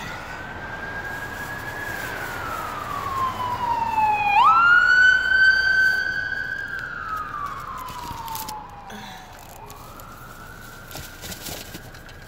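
Emergency vehicle siren wailing, its pitch sliding slowly down and up and then sweeping quickly back up. It grows louder to a peak about halfway through, then fades as it passes.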